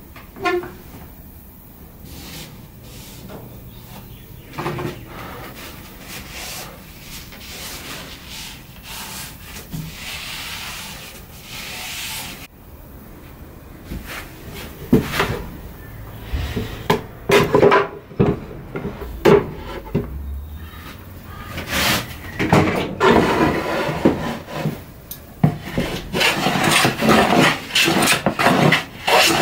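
Hand strokes rubbing and rasping across a wooden tabletop in irregular passes, growing denser and louder in the last few seconds.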